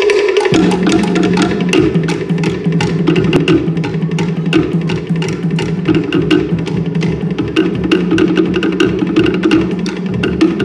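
Cook Islands drumming on wooden slit log drums (tō'ere) struck with sticks in a fast, dense interlocking rhythm. A lower-pitched drum comes in about half a second in and keeps up underneath.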